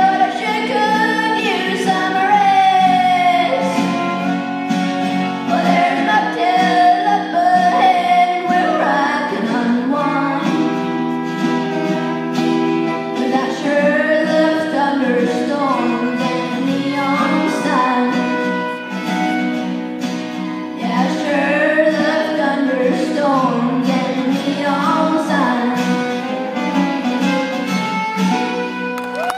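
Live country music from a small acoustic band: a fiddle and acoustic guitars playing, with a singing voice over them.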